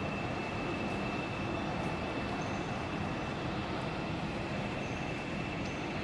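Steady rumble and hiss of a large railway station hall, with a thin, steady high whine over it.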